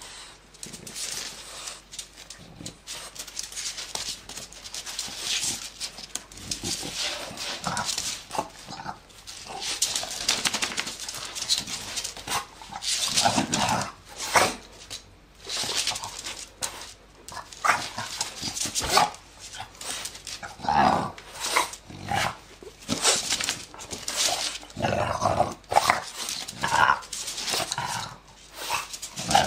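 French bulldog growling and barking in play in many short bursts, which come thicker and louder after about ten seconds.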